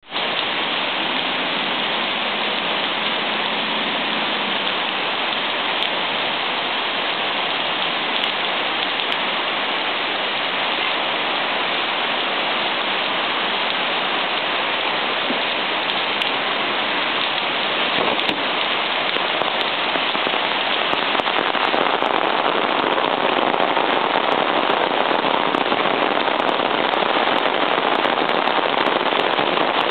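Heavy rain pouring steadily onto a flooded street and lawn, growing louder about two-thirds of the way through, with scattered sharp ticks.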